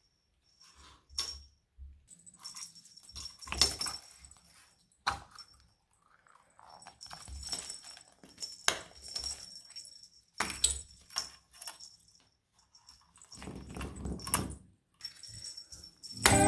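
Cat toy with a small bell being batted about: irregular jingling and rattling in short bursts, with knocks as it is hit and skids.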